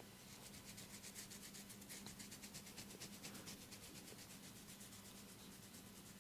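Faint sound of hands rubbing in quick, even massage strokes, several a second, fading out near the end.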